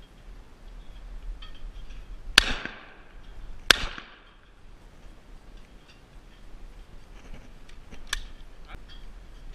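A Rizzini BR-550 20-gauge side-by-side shotgun fired twice, one barrel after the other, the shots just over a second apart, each with a short trailing echo. A much lighter click follows near the end.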